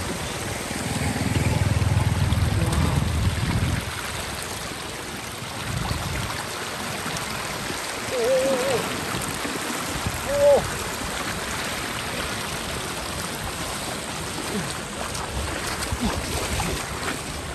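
Running floodwater flowing and trickling, with a louder low rumble in the first few seconds.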